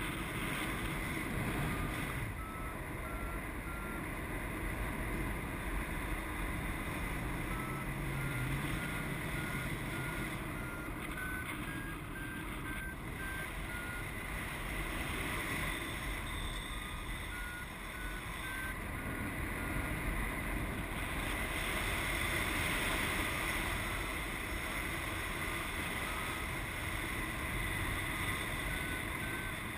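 Paragliding variometer beeping in runs of short, evenly spaced beeps, the pitch stepping up and falling back, which signals the glider climbing in ridge lift. Under it, steady wind rush on the microphone from the airflow.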